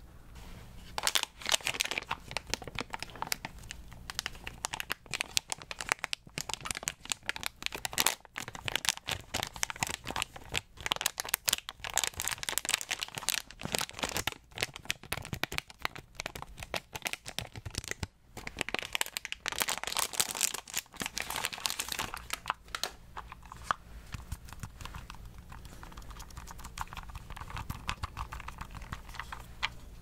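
Plastic snack packet crinkling as it is squeezed and rubbed between the fingers, a dense crackle. It gives way to softer handling noise for the last several seconds.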